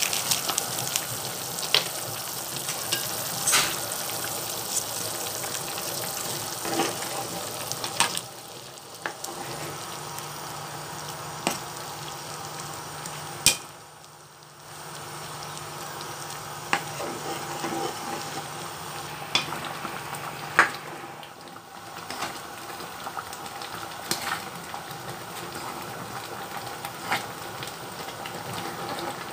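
Pot of Japanese curry (pork, potato and carrot) simmering on the stove with a steady hiss as curry roux blocks are stirred in with a spoon. Scattered sharp knocks of the spoon against the pan come through it.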